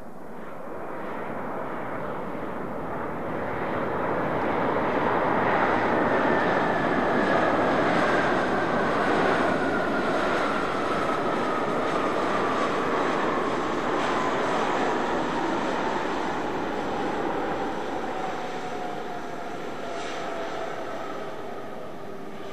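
Airbus A350 airliner passing by on its Rolls-Royce Trent XWB turbofans: the jet noise swells for several seconds, then slowly fades, with an engine whine that falls steadily in pitch as it goes by.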